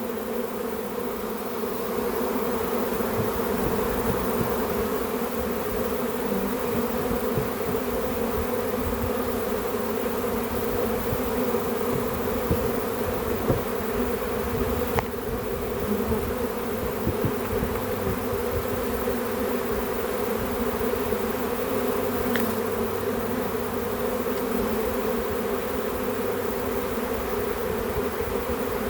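Swarm of honey bees buzzing: a steady, dense hum of many bees in flight, heard as the swarm is being hived.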